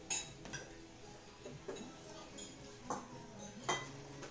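Eating utensils clinking now and then against plates and bowls during a meal, a handful of separate clinks, the sharpest just after the start and near the end, over faint background music.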